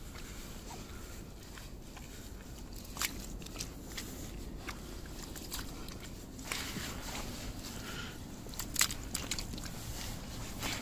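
Small hand shovel digging into wet beach sand: irregular crunches and gritty scrapes as the blade bites in, the sharpest about three seconds in and again near the end, over a low steady rumble.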